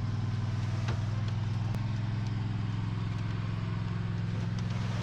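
An engine running steadily at an even low pitch, with a few faint clicks over it.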